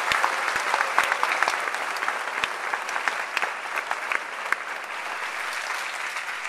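Audience applauding, a dense patter of many hands clapping that is loudest at first and slowly fades.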